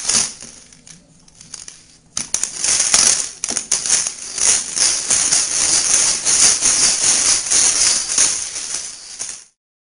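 Dry dog food rattling inside a plastic treat-dispensing puzzle ball as a dog rolls it around. The rattling dies down soon after the start, resumes about two seconds in, and then continues until it cuts off abruptly near the end.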